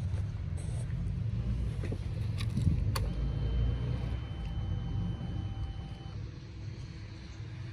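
A car with its engine off, just before a hard-start attempt: a low rumble, a sharp click about three seconds in as the ignition is switched on, then a thin steady high whine for about three seconds before cutting off.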